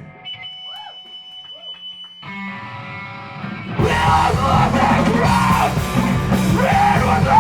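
Live hardcore band starting a song. A high steady tone and a few sliding guitar notes come first; sustained guitar joins about two seconds in, and the full band with drums and distorted guitars comes in loud about four seconds in.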